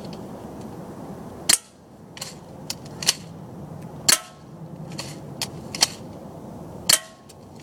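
Crosman Stinger S32P spring airsoft gun firing three sharp shots, a little under three seconds apart, each with a brief ringing tail, and lighter clicks between the shots.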